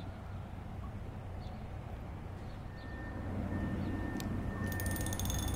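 Steady low rumble of city traffic, growing louder about halfway through, with a thin steady high whine over it. A single click and a brief high buzzy chirp come near the end.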